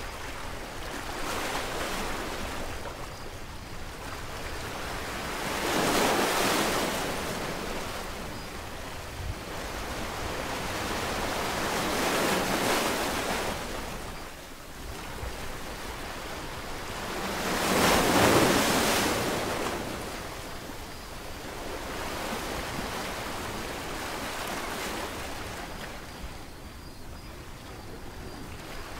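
Sea waves washing in and drawing back: a rushing surf noise that swells and fades slowly, with three bigger swells about six seconds apart and quieter wash between them.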